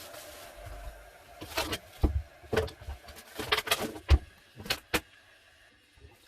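A series of irregular sharp knocks and clicks, about a dozen in five seconds, the loudest about four seconds in, dying away near the end.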